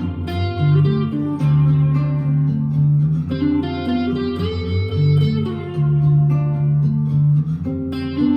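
Vintage V100 electric guitar played through an amplifier's overdrive channel: a moody rock passage of held chords and single notes, changing about every half second to a second.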